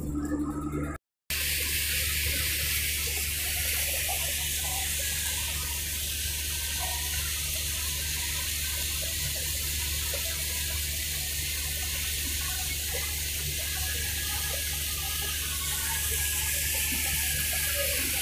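Water rushing steadily along the hull of a passenger river boat, over the low, steady drone of the boat's engine. The sound starts abruptly about a second in.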